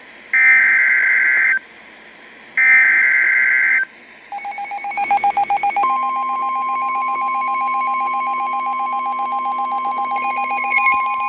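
NOAA Weather Radio EAS alert: the last two of the three SAME digital header bursts, harsh data screeches about a second long with a second's gap between them, announcing a special marine warning. About four seconds in, a pulsing electronic alarm beep starts. Some six seconds in, the steady 1050 Hz warning alarm tone begins and holds to the end, with the pulsing beep still under it.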